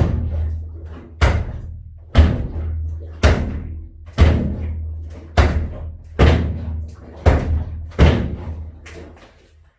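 Nine heavy bangs about once a second, each followed by a low ringing that dies away, as something hard is struck over and over with a handle.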